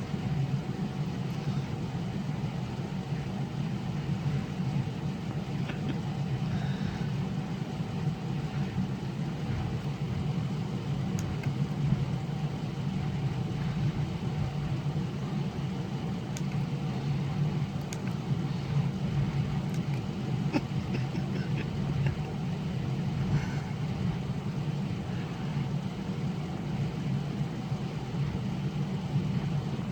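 Truck engine idling steadily, a constant low hum heard from inside the cab.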